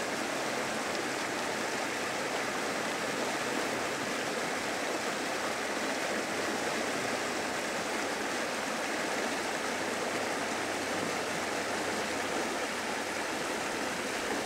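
Small creek running over rocks in shallow riffles: a steady rush of water.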